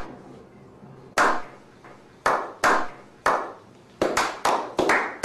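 A slow clap from a small group: single claps a second or so apart that quicken into faster, fuller clapping near the end.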